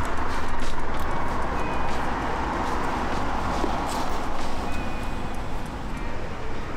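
Steady background noise of a car repair shop, with a few faint clicks from hand tools working bolts under the car.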